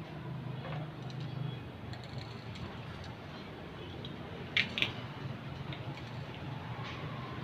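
Aerosol spray paint can being shaken, the mixing ball inside clicking sharply twice about four and a half seconds in, with a few fainter ticks before, over a steady low hum.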